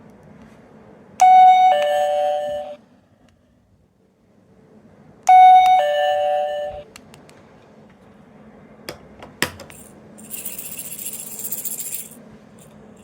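Toy doorbell chime from a sound-making capsule toy, playing a two-note ding-dong twice, about four seconds apart. A couple of sharp clicks follow, then about two seconds of high hissing.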